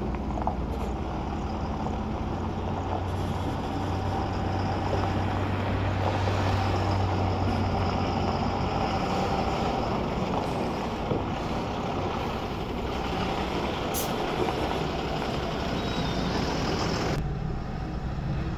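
Ashok Leyland truck's diesel engine running steadily as the truck turns in a yard. A short sharp hiss comes about fourteen seconds in. Near the end the sound changes abruptly to a duller road noise heard from inside a passing car.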